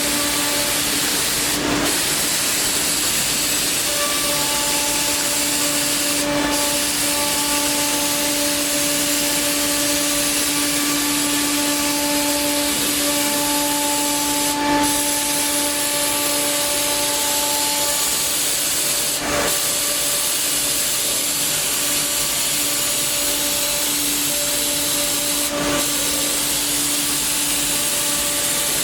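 HOMAG 5-axis CNC woodworking machining centre running: a steady whine with a continuous hiss, like a spindle working wood under dust extraction, with a few brief changes along the way.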